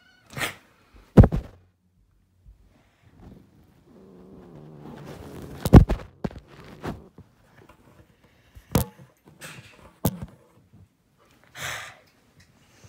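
A series of knocks and thumps with rustling, as the filming phone is handled and bumped against the bedding. The loudest knocks come about a second in and again just before the six-second mark.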